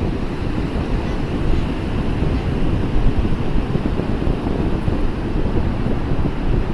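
Sea waves and surf rushing steadily, with wind buffeting the microphone.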